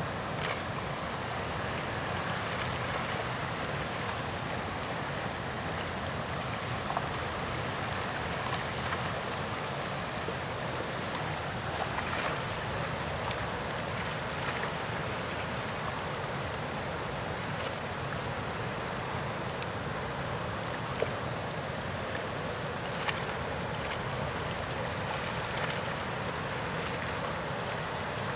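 Steady outdoor background noise, an even hiss without a clear source, with a few faint ticks.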